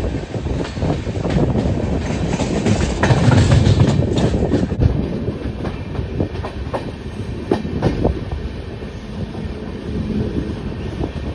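Express passenger train running along the line, heard from the open coach door: wheels clacking over rail joints at irregular intervals over a steady rolling rumble, loudest about three to four seconds in.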